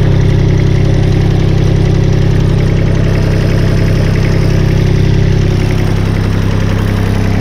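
A paver's engine running steadily at idle, with a constant even hum.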